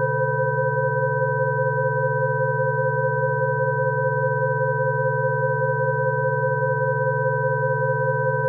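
Electronic Rife-frequency tones: several steady sine tones at different pitches sounding together without change, over a rough low hum.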